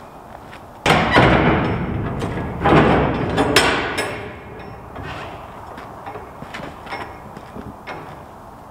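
Stiff steel shipping-container door being heaved open on its hinges: a loud metal grating starts about a second in, surges again near three seconds, then dies down to a few light knocks. The owner thinks the door is bowed, so its hinges no longer line up.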